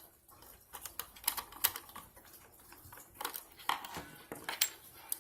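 Irregular light clicks and taps of small metal parts being handled while a 3D printer's power supply is taken apart: screws, heatsink plates and the metal case being unscrewed and lifted out.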